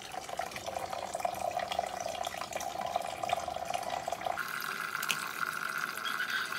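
Water running steadily, its pitch jumping higher about four seconds in, with a few faint clicks.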